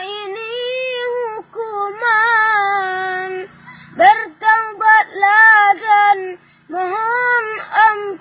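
A young child singing solo in a high voice: long drawn-out notes that waver and bend in ornamented runs, broken by short pauses a few times.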